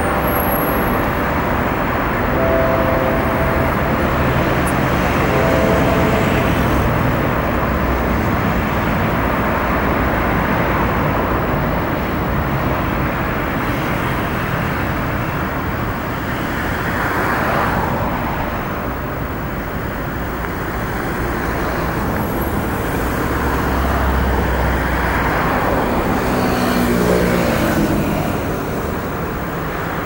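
Steady road traffic noise from many cars running along a multi-lane city boulevard. Vehicles pass louder about halfway through and again near the end, and a few brief tones sound in the first few seconds.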